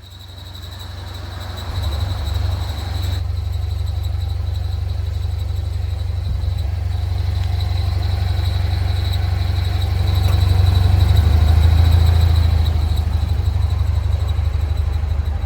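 Subaru BRZ's flat-four engine idling with a steady, thin, high-pitched metallic squeal from a failing clutch release (throw-out) bearing, a common fault on the 86/BRZ. The engine note swells a little past the middle.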